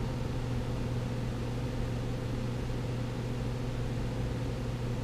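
Fender Vibro Champ tube amplifier putting out a steady low tone with faint overtones and light hiss, driven with a test signal at high volume.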